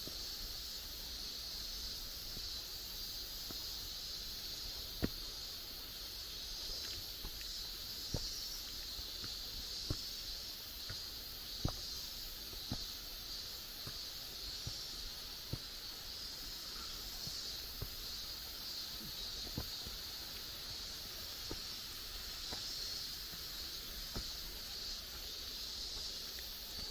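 A steady high-pitched chorus of insects in the forest, an unbroken hiss, with occasional sharp light taps scattered irregularly through it.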